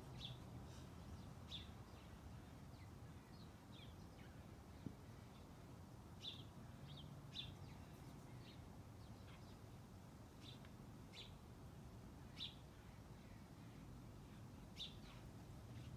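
Faint, short, high bird chirps at irregular intervals, about a dozen of them, against near silence.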